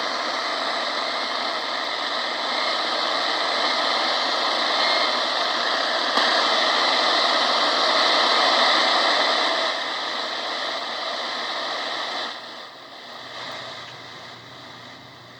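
Portable shortwave radio's speaker giving a steady loud hiss of static, tuned between stations. About twelve seconds in the hiss drops sharply and goes on much quieter.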